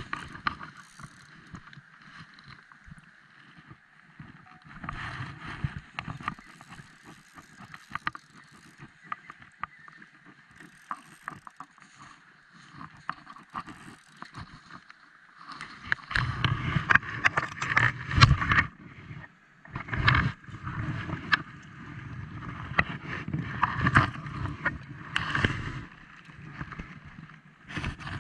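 Water rushing and lapping at the edge of a riffle, with the clicking and rustling of a spinning reel and rod being worked while a fish is played. About halfway through the sound grows louder and busier, with repeated knocks and splashy surges as the fish is reeled in, up to its being lifted from the water.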